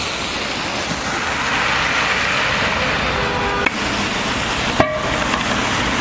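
Steady traffic noise, the hiss of tyres on a rain-soaked street. A car horn toots briefly about three seconds in, and a second short tone comes near five seconds.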